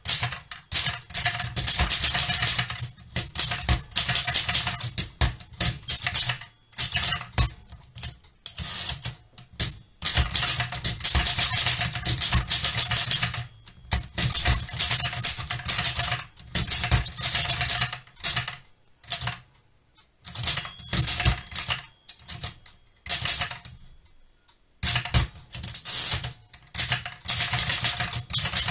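Erika Modell 4 folding typewriter being typed on: quick runs of typebar strikes against its hard platen, broken every few seconds by short pauses.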